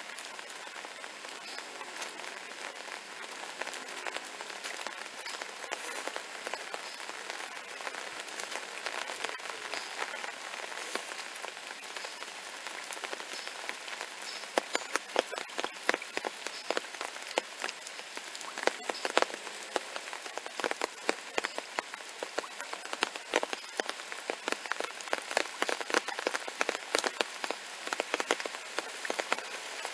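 Steady rain falling on wet pavement and puddles, a continuous hiss full of small drop patters; from about halfway through, many louder, sharp drop impacts stand out above the hiss.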